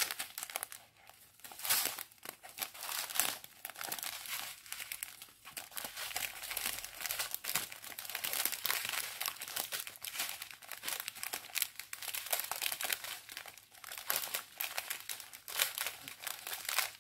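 Crinkling of a strip of small clear plastic sachets of diamond painting drills as it is handled and unfolded, in an irregular, continuous run of rustles.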